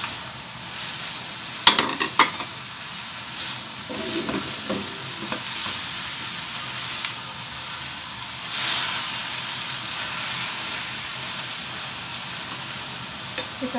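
Cabbage, mushrooms and other vegetables sizzling in a hot wok as a spatula stirs and tosses them, with a few sharp clinks about two seconds in and a louder burst of sizzle about halfway through.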